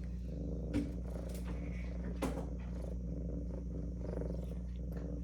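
Domestic cat purring steadily, with a couple of faint clicks.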